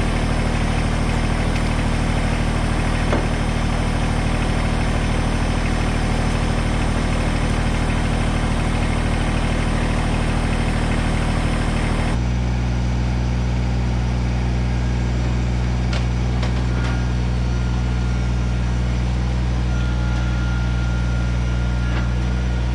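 Kubota BX24 compact tractor's diesel engine running steadily. Its tone changes abruptly about twelve seconds in.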